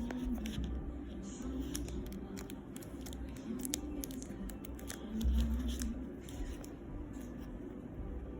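A parcel being opened by hand: packaging cut and torn, with crinkling, rustling and small handling clicks, and a dull thump about five seconds in. Faint background music runs underneath.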